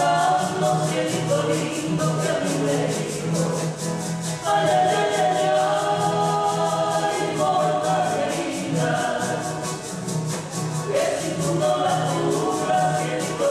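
A Mexican song played live: singers' voices over two strummed acoustic guitars, with a shaker rattling a steady beat.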